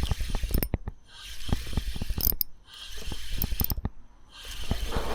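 Fishing reel wound in on a hooked fish: rapid clicking from the reel in spells of about a second, broken by short pauses.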